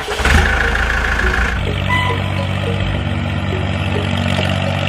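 Diesel tractor engine starting up, loudest in the first moment, then running at a steady idle.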